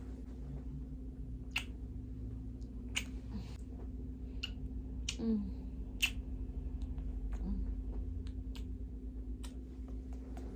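Hands massaging bare skin, with scattered light clicks and taps over a steady low hum.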